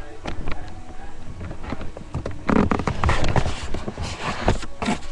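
Irregular knocks, bumps and rubbing of a webcam being picked up and moved, handled right against its own microphone, with a busier cluster of knocks a little past the middle.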